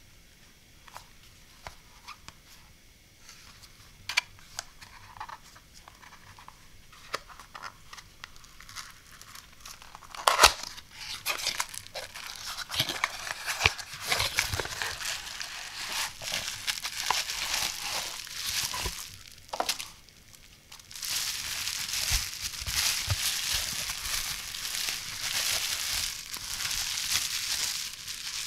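Hands handling a thin cardboard product box, with soft taps and clicks of the flaps, a sharp snap about ten seconds in, then crinkling as a lithium-ion camera battery is pulled out of its plastic bubble-wrap bag. The crinkling is steady through the last several seconds.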